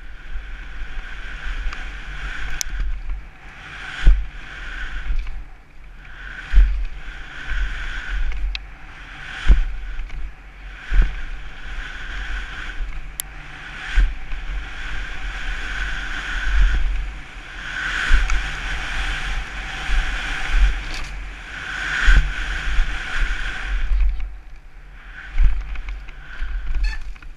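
Mountain bike descending a rough dirt singletrack, heard from a helmet-mounted camera: wind rumbling on the microphone, sharp knocks as the bike hits bumps, and a high buzz that comes and goes in waves.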